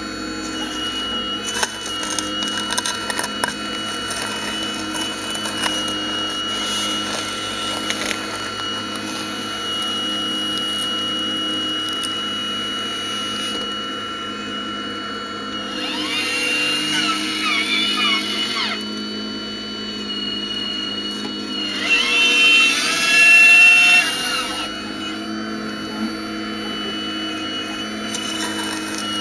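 Radio-controlled scale model Hitachi 870 excavator working, its motors giving a steady high whine while the bucket scrapes through soil. Twice, about halfway through and again later, the whine swells louder with sliding pitches as the arm and bucket move.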